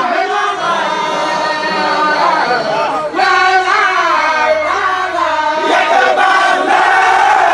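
A large group of Baye Fall men chanting a Sufi zikr together in one loud, sustained, melodic chant, the massed voices rising and falling in pitch.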